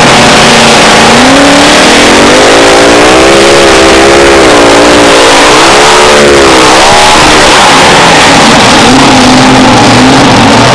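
Mini rod pulling tractor's engine at full throttle as it launches and pulls the sled. Its pitch climbs about a second in and wavers up and down, then falls off around seven seconds in, leaving a lower, steadier engine note near the end.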